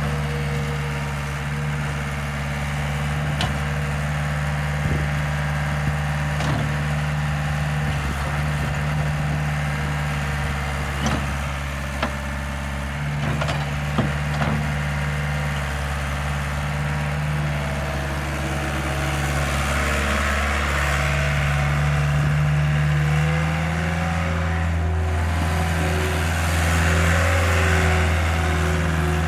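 Caterpillar skid steer's diesel engine running steadily, with a few sharp clicks in the middle. In the last third the engine note shifts and a rushing noise rises over it.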